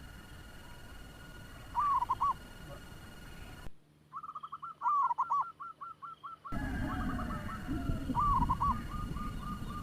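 Zebra doves (perkutut) cooing: short phrases of a few rising-and-falling notes, repeated every few seconds. A rapid run of short repeated notes comes a few seconds in and again near the end.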